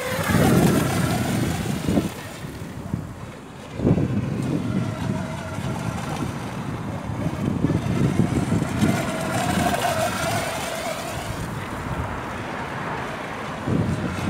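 Radio-controlled electric monohull speedboat on a 3S LiPo pack running at speed, its motor whine sweeping up and down in pitch as it passes back and forth, with spray hiss. Wind buffets the microphone, loudest just after the start and about four seconds in.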